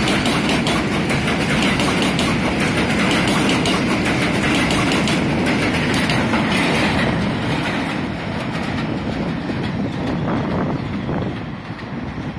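New York City Subway R160B (Siemens) train pulling out of the station, its cars running close past with wheels clattering rhythmically over the rail joints. The sound drops after about eight seconds as the last car passes, fading further near the end.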